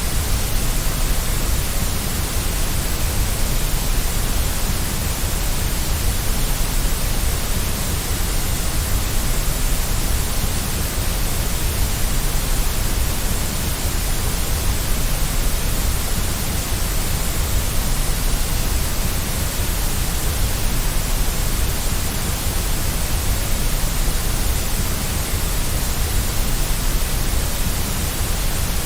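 Steady white noise: an even, unbroken hiss that does not change.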